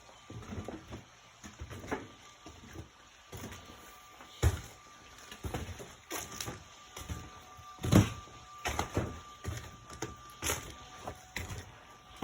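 Irregular knocks and scrapes of hand masonry work with cultured stone and trowel, the loudest knocks about four and a half and eight seconds in.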